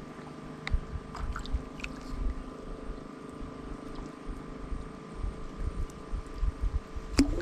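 A steady motor hum with several held pitches, under gusts of wind rumbling on the microphone, with a few faint clicks in the first two seconds.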